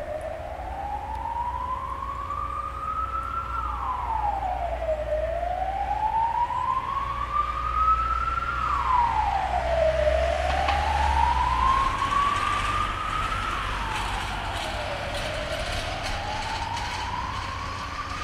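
A wailing siren, its pitch climbing slowly for about three seconds and then dropping quickly, the cycle repeating about every five seconds at a steady level. Under it runs a low rumble that stops about twelve seconds in.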